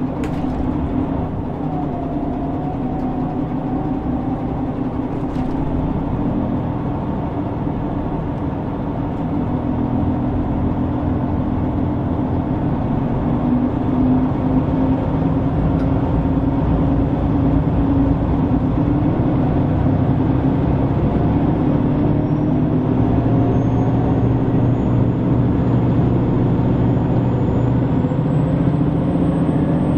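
JR Shikoku 2000 series diesel railcar heard from inside the carriage as it pulls away. The diesel engine runs steadily and grows louder about halfway through, with a faint high whine rising in the last several seconds.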